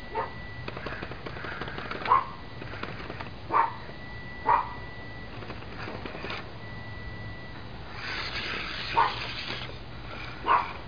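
A dog barking six times, in short single barks spaced irregularly about one to four seconds apart. Under the barks is a faint high steady whine that comes and goes.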